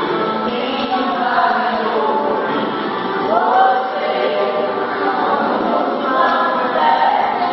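A group of children singing together as a choir.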